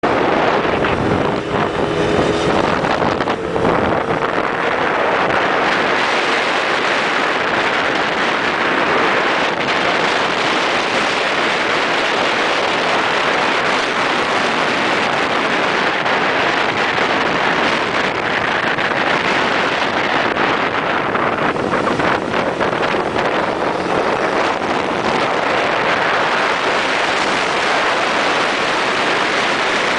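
Steady rush of wind and road noise from riding along a road in an open vehicle, with a brief humming tone in the first few seconds.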